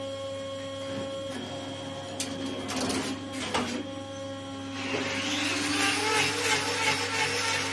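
A steady electric motor hum, with a few short metal knocks a little after halfway. About five seconds in, a handheld grinder used for hoof trimming spins up and runs, its pitch wavering as it works.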